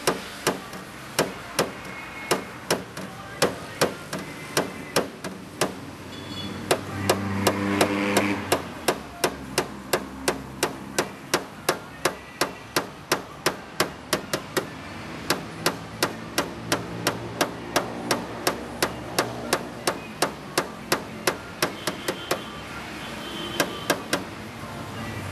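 Light hammer tapping on car body metal during paintless dent repair: a long, even series of sharp taps, at first about one and a half a second, then about two a second. A low hum swells briefly about seven seconds in.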